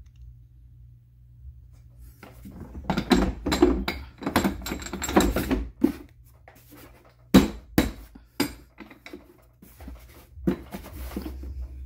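Hands handling plastic RotoPax fuel canisters and their mount lock knobs: irregular clattering knocks and rattles, densest in the middle, with a pair of sharp knocks about seven and a half seconds in.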